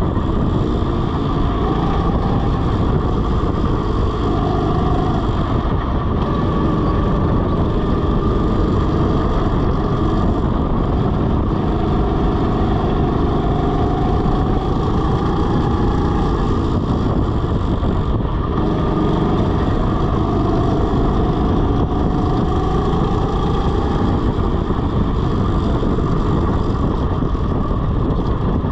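Rental go-kart driven at speed on a track: the kart's motor runs under wind rushing over a chest-mounted microphone. A faint pitch rises several times as the kart speeds up.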